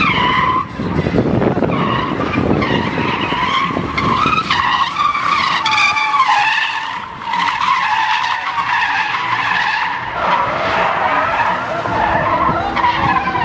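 Car tyres squealing on asphalt as cars drift sideways, a long wavering squeal over the engines running. The squeal briefly drops out twice, a little under a second in and again around seven seconds.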